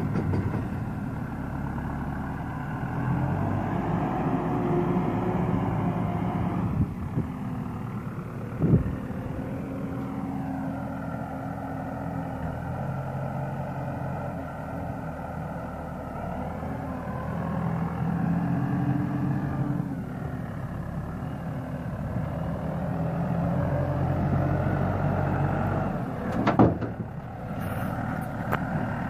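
Case JX75C tractor's diesel engine running and revving up and down in long swells as its front loader lifts and dumps manure into a trailer. Two sharp knocks stand out, one about nine seconds in and one near the end.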